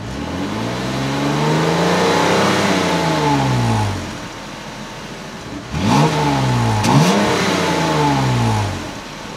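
2014 Jeep Cherokee Trailhawk's 3.2-litre Pentastar V6, heard at the dual exhaust tips, revved in park: one slow rev that climbs and falls back over about four seconds, a moment of idle, then two quick blips, the second held briefly before dropping back to idle near the end.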